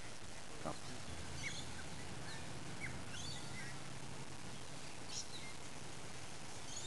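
Scattered short, high bird chirps over a steady outdoor background hiss, with a low drone for a few seconds starting about a second in.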